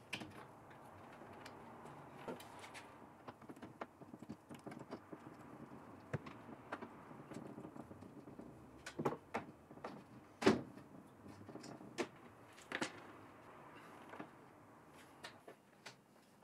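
Wooden sliding cabinet door and its wooden top guides being handled: faint scraping and rubbing, with scattered light knocks and clicks. A sharper knock about ten seconds in is the loudest.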